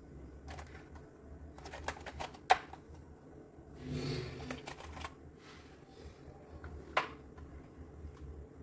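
Keys of a Redragon K596 mechanical keyboard with linear red switches being pressed, irregular clacking keystrokes, two of them clearly louder than the rest.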